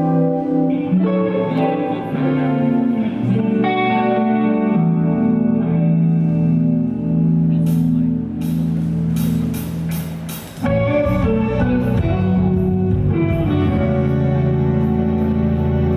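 Electric guitar, a Yamaha Revstar RS-620 through effects, playing a melody of held notes over a backing accompaniment. A run of sharp hits comes about eight to ten seconds in, and a heavier low end joins about ten and a half seconds in.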